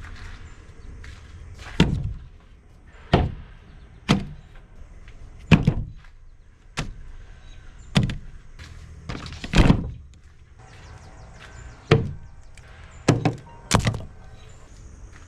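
About a dozen sharp knocks and thuds at uneven intervals, like objects being handled and set down.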